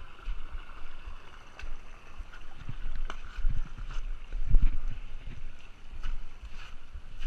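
Water sloshing and splashing around a kayak, with irregular low thumps on the microphone that are heaviest about halfway through.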